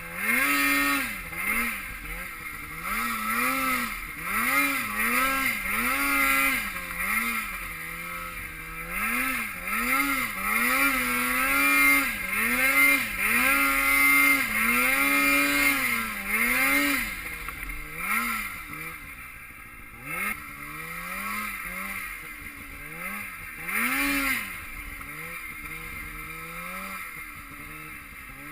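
Snowmobile engine revving up and dropping back again and again as the throttle is worked, roughly once a second. In the last third it runs lower and quieter, with an occasional rev.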